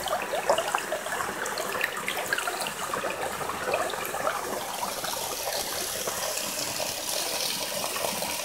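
Shallow forest stream running over stones and leaves right by the microphone, babbling and gurgling. Its sound becomes a steadier rush in the second half.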